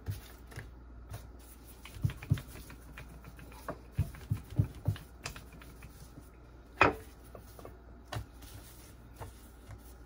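Scattered light knocks and taps of dough being pressed flat on a wooden cutting board, with a louder knock about seven seconds in.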